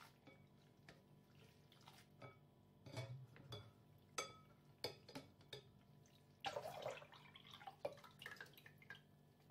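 Faint clinks of chopsticks and a wire skimmer against a glass bowl as cooked noodles are stirred and lifted in cold water, with water dripping. About six and a half seconds in comes a longer wet rustle and splash as the noodles are shaken and tossed in the bowl.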